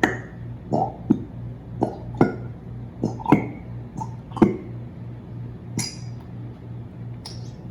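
Light clinks against glass, about a dozen irregular taps with a short ring, as the glue bottle is squeezed out over a glass bowl. A low steady hum runs beneath.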